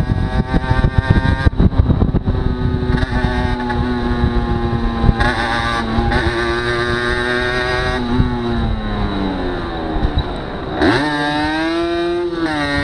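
Aprilia motorcycle engine running under way, with wind rushing over the microphone. Its note drops as the bike slows, then rises sharply about eleven seconds in as the revs pick up.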